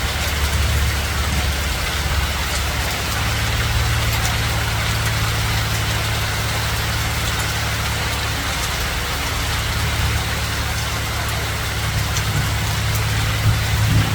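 Hailstorm: hail and rain falling steadily, with scattered faint ticks, over a steady low hum that shifts slightly higher about three seconds in.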